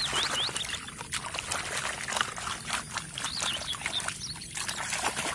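Water splashing and sloshing as a toy jeep is swished back and forth by hand in shallow water to wash off mud, with many quick irregular splashes over a steady running-water wash.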